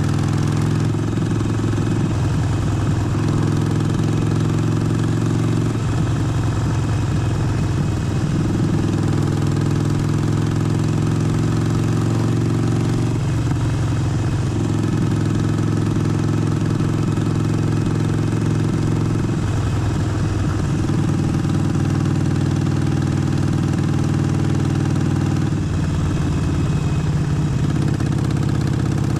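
Harley-Davidson Forty-Eight's 1200 cc air-cooled V-twin running steadily, its engine note stepping up and down in pitch several times as the throttle changes.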